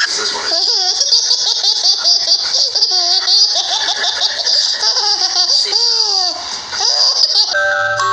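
A baby laughing, a long run of short laughs rising and falling in pitch. Music comes in near the end.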